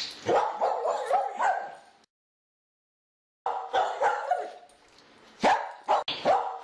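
A dog barking repeatedly, with a stretch of dead silence from about two seconds in until about three and a half seconds, then the barking resumes.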